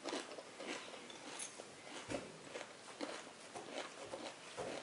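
A child chewing a mouthful of cereal close to the microphone: faint, irregular crunching and mouth clicks.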